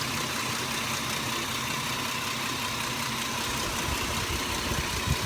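Vehicle engine idling steadily, with a low rumble growing stronger about three and a half seconds in.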